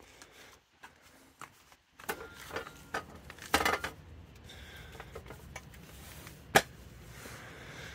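Knocks and rattling clatter of a metal folding step stool being handled and set down, with a louder burst of clatter about three and a half seconds in and one sharp knock near the end.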